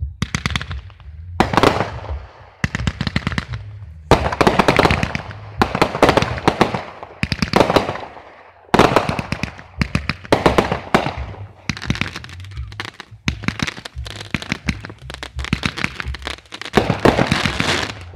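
Fireworks finale: aerial shells bursting in quick succession, each wave of dense crackling lasting a second or two, with a new wave starting about every one and a half seconds over a low rumble.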